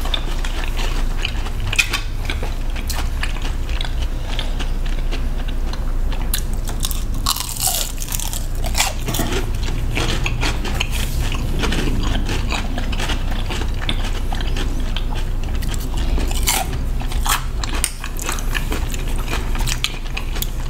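Close-up chewing and biting of sushi, with crunching and many small wet clicks, over a steady low hum.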